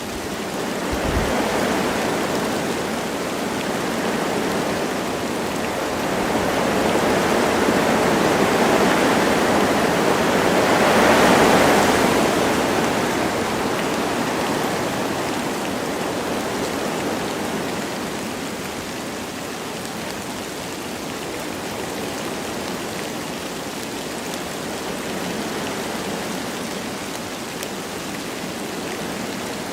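Wind blowing through forest trees over light rain: a steady rushing that swells in gusts, strongest about eleven seconds in, then eases off.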